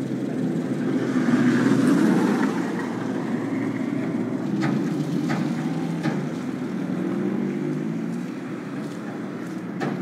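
Road traffic going by, a steady low hum that swells louder about a second in as a vehicle passes, with a few light clicks midway.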